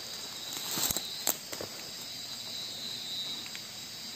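Steady high-pitched chorus of night insects, with a few short crackling rustles about a second in.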